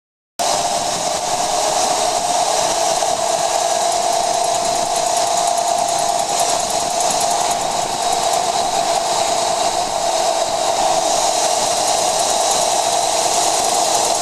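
2014 Jeep Wrangler JK on the move: steady road and drivetrain noise with a high-pitched rapid clicking, starting abruptly about half a second in. The clicking persists after the rear axle shafts were replaced and the differential gears checked, and its cause is unknown.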